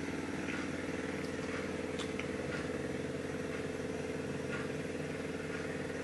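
A steady low hum with a buzzy edge that holds unchanged throughout, with a couple of faint ticks.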